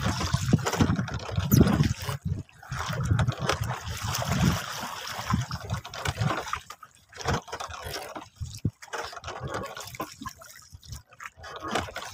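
Sea water splashing and lapping against the hull of a small wooden boat, irregular and choppy, heavier in the first few seconds.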